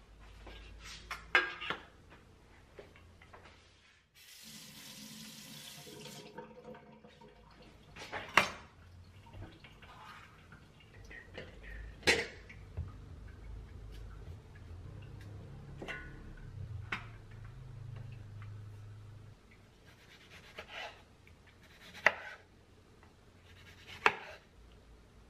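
Kitchen prep: sharp knocks of a knife and utensils set down on a wooden cutting board, and a kitchen tap running for about three seconds. Near the end a chef's knife slices through tomatoes, knocking twice on the wooden board.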